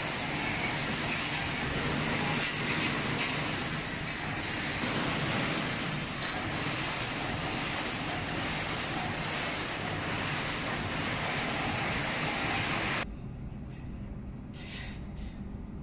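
Steady machinery noise from a wire mesh welding machine line running. About 13 seconds in it drops suddenly to a quieter hum, with a couple of short knocks.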